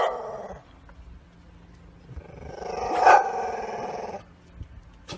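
A dog barking and growling: the end of a loud bark at the start, then a drawn-out growling call about two seconds in that lasts about two seconds, swelling and fading.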